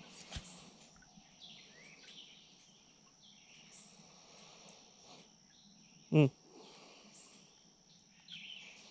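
Woodland ambience: a steady high insect drone with scattered short bird chirps, and a single sharp knock about half a second in. About six seconds in comes one brief, louder vocal sound from a man, a short grunt or murmur with no words.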